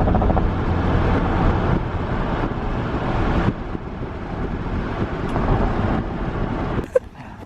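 Steady road and engine noise inside a moving car, a low rumble with hiss on top, which cuts off about seven seconds in.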